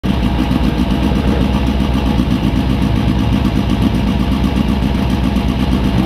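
A rally car engine running loudly and steadily, with a dense rapid pulsing.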